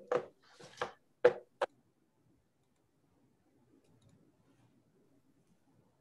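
A few short clicks and knocks over a video call's open microphone during the first second and a half, then near silence.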